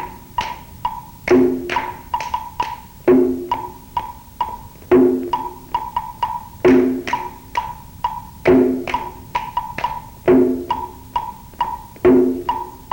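Percussion beat keeping the count for the exercise: a low drum stroke about every two seconds, with quicker wood-block ticks in between.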